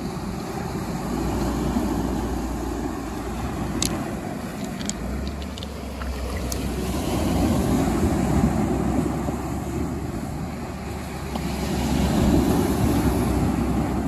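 Big Lake Superior waves breaking on a cobble beach, with wind buffeting the microphone. The rush swells about halfway through and again near the end, with a few small clicks.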